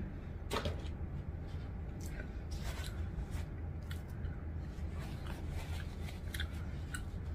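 Close-miked eating of crispy fried chicken: scattered small crunches and mouth clicks, with a paper napkin rustling as fingers are wiped near the end, over a low steady hum.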